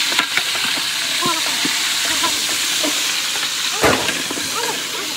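Food sizzling as it fries, a steady hiss, with one sharp knock a little before four seconds in.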